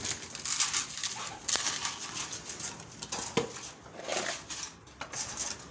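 Blue plastic pigeon grit feeders being handled and set down on a concrete floor: light plastic rattling with a few sharp clicks and knocks, about three in all.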